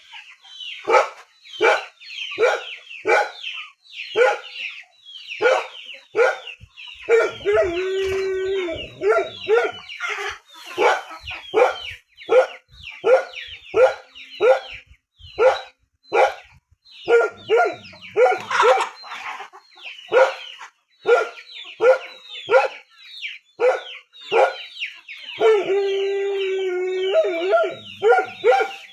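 A dog barking over and over, about two barks a second. Twice, about 7 seconds in and again near the end, there is a longer held call of about a second and a half.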